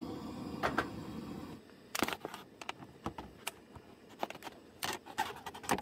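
Coleman propane camp stove burner running with a steady low rush under a kettle, cutting off about a second and a half in. Then come scattered clicks, taps and crinkles from a plastic water bottle being handled.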